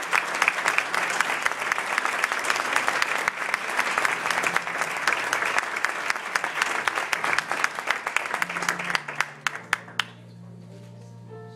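Audience applauding with dense clapping that thins out and stops about ten seconds in. Quiet instrumental music comes in under it near the end.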